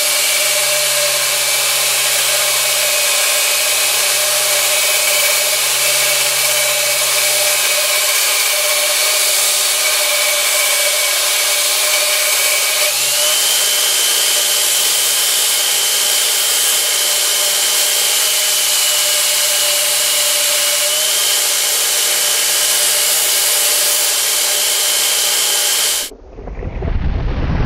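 A 2x72 belt grinder, driven by a three-phase motor on a VFD, grinds a metal rod against its abrasive belt: a loud, steady hiss over a whining motor and belt, the whine stepping up in pitch about halfway through. It cuts off abruptly near the end and gives way to a deep boom.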